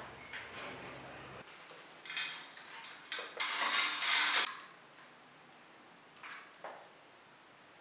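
Bicycle chain links rattling and clinking as the metal chain is handled and fed onto the crankset and through the rear derailleur. The jingling is loudest for a couple of seconds in the middle, then gives way to a few light clicks.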